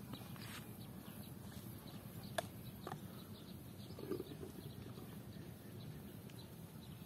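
Faint outdoor ambience: a low steady rumble with a handful of short, sharp clicks and knocks scattered through it, the sharpest about two and a half seconds in.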